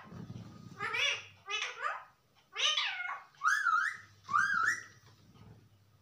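Rose-ringed parakeet calling: about five short pitched calls, each rising and falling, the last two higher and louder.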